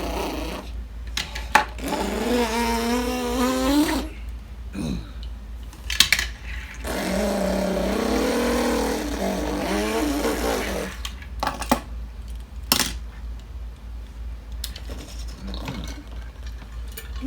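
A person imitating a revving car engine with the voice, the pitch wavering up and down in two long stretches, with several sharp clicks of die-cast toy cars in between.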